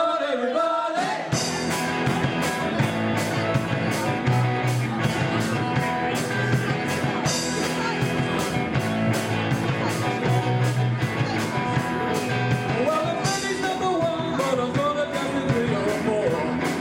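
Live rock and roll band: a singer over electric guitars and a drum kit keeping a steady beat. The voice is nearly alone at first, the full band comes in about a second in, and the singing returns near the end.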